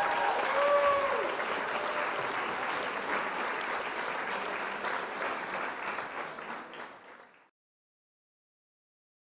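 Crowd applauding, with a few whoops in the first second or so; the applause fades out after about seven seconds, leaving silence.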